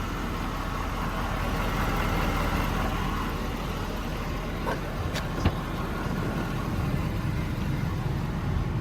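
Ford F550's 6.7 Power Stroke diesel idling steadily, with a couple of light knocks about five seconds in.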